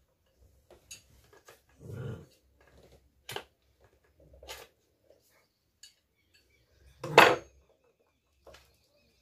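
A dog growling and barking a few short times, the loudest bark about seven seconds in, over small clicks and scrapes of a knife working at a plastic squeegee head.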